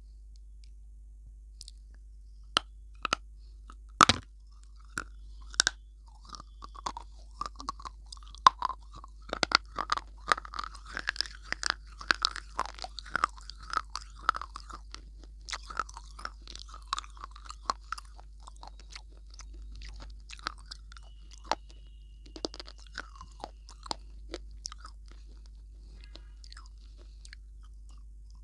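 A person biting and chewing something hard and crisp close to the microphone. A few sharp snaps come in the first six seconds, then steady crunching that thins out after about eighteen seconds.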